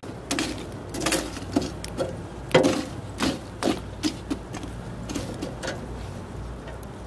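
Wire grill basket and a long metal rod clanking and rattling against the rim of a metal charcoal grill as the basket is set over the coals: a dozen or so sharp, uneven knocks, the loudest about two and a half seconds in.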